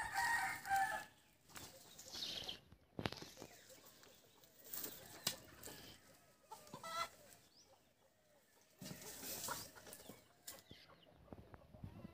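Chickens clucking, with one call right at the start and another about seven seconds in, between short bursts of rustling.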